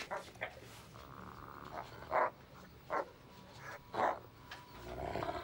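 A dog makes three short vocal sounds, about a second apart. A faint steady whine comes in about halfway through.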